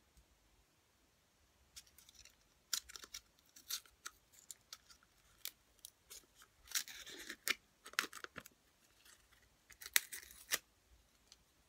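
A plastic baked-pudding cup being handled and opened: a string of sharp clicks and crinkles of thin plastic, with a longer tearing rustle about seven seconds in.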